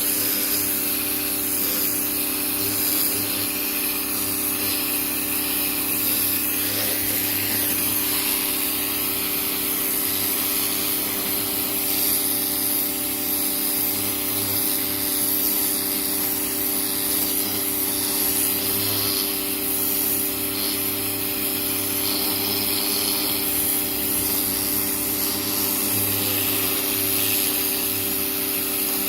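Greenworks 1600 psi electric pressure washer running steadily: a motor and pump hum under the hiss of the turbo-nozzle spray striking the siding.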